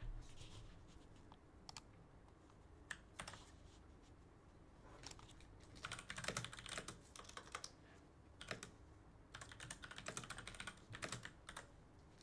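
Faint typing on a computer keyboard: a few scattered keystrokes, then two runs of quick clicks in the second half.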